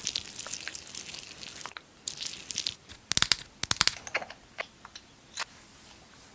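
Makeup products and their packaging handled close to the microphone: scratchy crinkling rustles for the first second and a half, then short bursts, a quick run of sharp clicks and taps about three seconds in, and a few single taps after.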